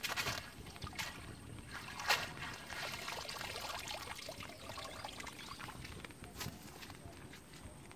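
Shallow muddy water splashing and trickling as a bamboo cylinder fish trap is moved about and set down in it, with a few sharper splashes, the loudest about two seconds in, then a softer steady wash of water.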